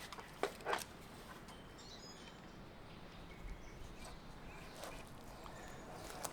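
A utility knife cutting aluminum trim coil along a marked line: two sharp clicks about half a second in, then faint light scraping.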